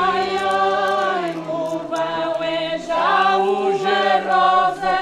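Slow choral singing, several voices holding long notes, with short breaks between phrases about every second and a half.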